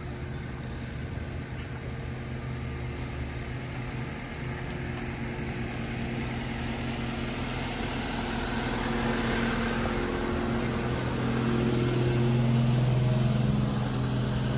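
An engine running steadily with a low hum, drawing nearer and growing louder over the second half.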